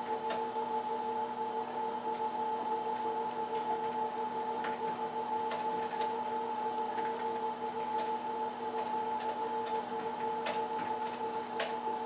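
A steady machine hum with a few pitches held unchanged, with irregular small clicks and ticks scattered over it.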